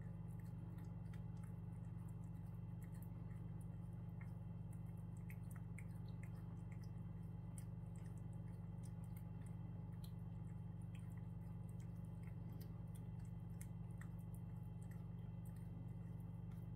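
Cat licking paste from a squeeze-tube treat: small, scattered, wet clicks of its tongue, over a steady low hum.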